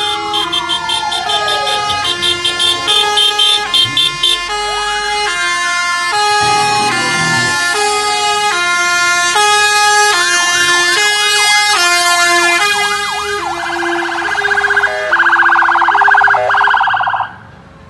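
Sirens of a fire engine and an ambulance driving past, several sounding together in different patterns: falling wails, stepped alternating tones and quick yelps, with a fast warble from about thirteen seconds in. The sound drops off abruptly near the end.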